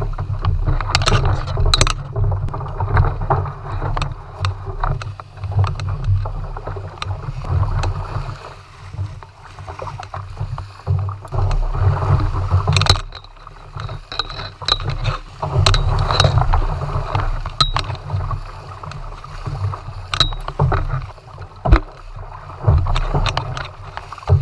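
Tandem kayak being paddled through shallow water: double-bladed paddles dipping and splashing, water washing along the hull over a heavy low rumble, with scattered sharp clicks.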